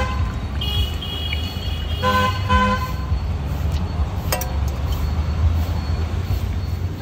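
Street traffic rumbling with vehicle horns honking: a high horn held for about a second near the start, then two short, lower honks about two seconds in. A sharp clatter about four seconds in.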